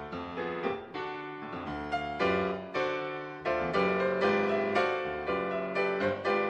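Background piano music: notes and chords struck one after another and left to ring and fade.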